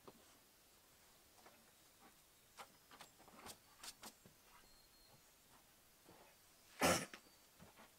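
Spruce log rounds being shifted and stacked by hand, with scattered light knocks and footsteps, and one loud thump near the end as a log is set down.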